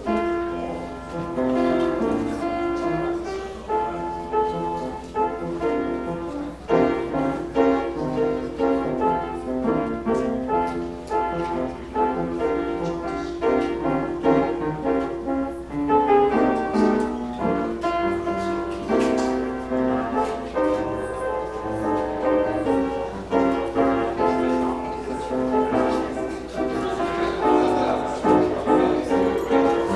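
Instrumental keyboard music playing, a steady stream of notes over chords.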